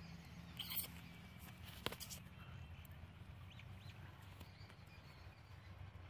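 Quiet field ambience with a low steady rumble, a short rustle about a second in and a single sharp click near two seconds in.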